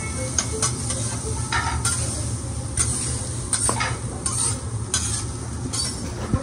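Metal hibachi spatulas scraping and tapping on a hot flat-top teppanyaki griddle as fried rice is chopped and tossed, in repeated irregular strokes over steady sizzling.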